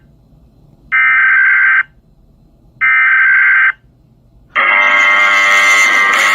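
Electronic alarm buzzer sounding in pulses of about a second on and a second off, twice, then switching to a continuous alarm about four and a half seconds in.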